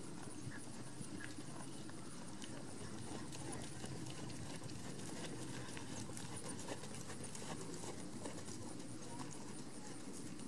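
Hoofbeats of a horse moving around a dressage arena on soft sand footing: many small, irregular thuds and clicks over a steady low background rumble.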